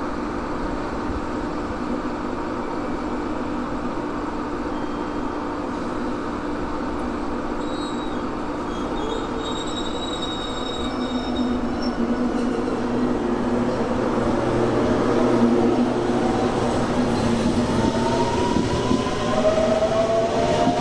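Electric commuter train pulling away from the platform: a steady hum, then the whine of its traction motors rising in pitch as it speeds up over the last few seconds.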